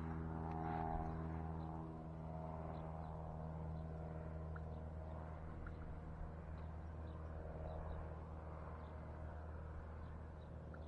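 A steady low motor hum, a little louder in the first two seconds, with faint short chirps over it.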